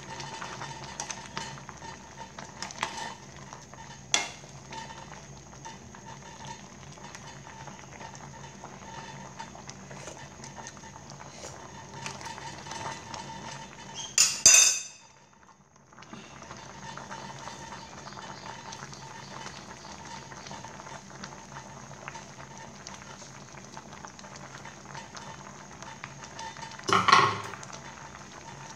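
A stainless steel pot of soup boiling steadily, with a metal spoon clinking against the pot a few times in the first few seconds. A louder clatter comes about halfway, followed by a second of near silence, and another loud clatter near the end.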